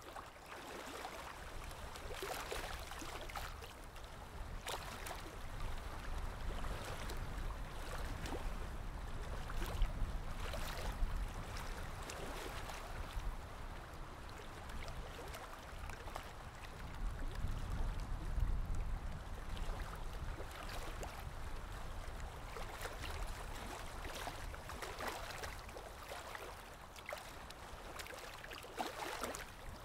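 Yarn and a crochet hook rustling and scraping close to the microphone as stitches are worked, in short uneven strokes over a low handling rumble that swells briefly past the middle.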